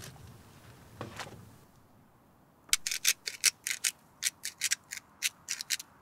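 Salt being sprinkled by hand onto a raw bone-in steak on a wooden cutting board: from about halfway through, a quick, irregular run of short, crisp crackles. Before it, a single soft knock about a second in from handling the portable fridge.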